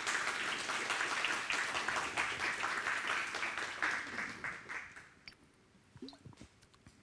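Audience applauding, a dense patter of many hands clapping that tapers off and dies away about five seconds in.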